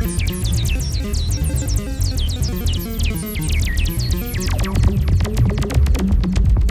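Live experimental electronic noise music from hacked electronic devices: rapid high chirps that fall in pitch, over a dense low pulsing drone, giving way to fast clicking about two-thirds of the way through.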